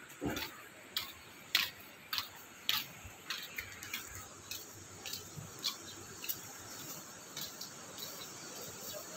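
Footsteps scuffing on a gritty concrete path at a walking pace of a little under two steps a second. The steps grow fainter in the second half.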